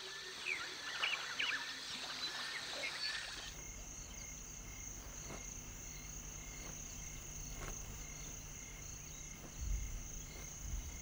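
Savanna ambience: a few seconds of chirping bird calls, then after an abrupt change a steady high-pitched insect trilling, with a soft low rumble near the end.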